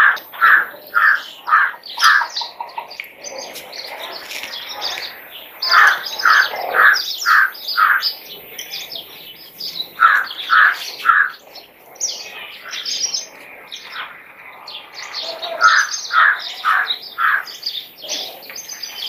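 Birds calling: one repeats a run of four or five clear, evenly spaced notes, about two to three a second, several times over, with shorter, higher chirps from other birds in between.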